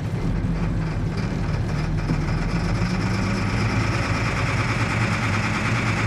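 Case IH 9330 tractor's diesel engine on a cold start after a week sitting in the cold, running and catching with smoke pouring from the stack, heard from inside the cab. The sound fills out about two seconds in.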